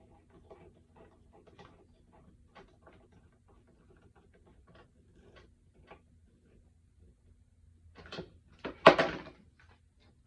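Faint small clicks and scrapes of a hand tool working the screw of an AR-15 pistol grip, then a sharp knock and a loud clatter about eight and nine seconds in.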